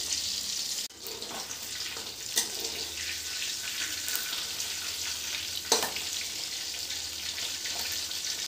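Eel pieces frying in oil in a metal wok, a steady sizzle. Twice, a little after two seconds and near six seconds, a metal spatula knocks or scrapes sharply against the pan as the pieces are turned.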